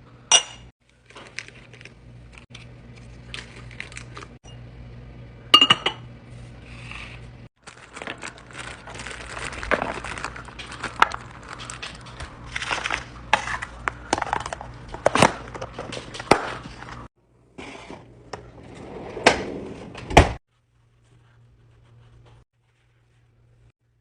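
Clinks, taps and rustles of containers and packaging being handled and set down while a fridge is restocked, over a low steady hum. The handling sounds stop about 20 seconds in.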